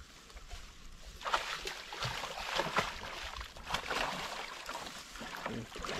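Water splashing and sloshing in irregular bursts, starting about a second in.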